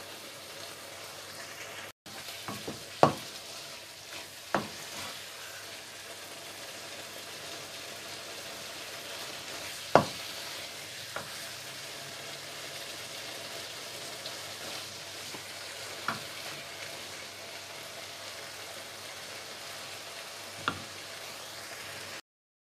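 Prawn masala sizzling gently in a nonstick wok, a steady hiss. A wooden spatula stirs it and knocks sharply against the pan about six times. The sound cuts off abruptly near the end.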